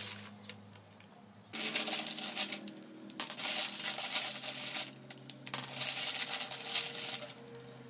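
Foil snack packet crinkling as a hand rummages inside it, in three long rustling stretches.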